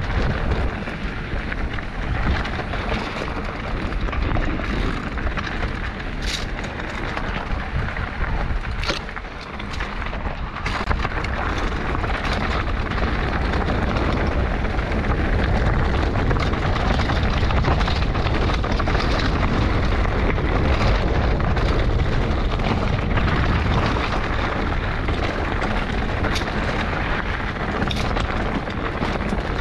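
Mountain bike descending a dry, stony dirt singletrack, heard through a GoPro's microphone: a steady rumble and rattle of tyres on dirt and loose stones, with a few sharp clicks. It grows louder past the middle as the bike goes faster.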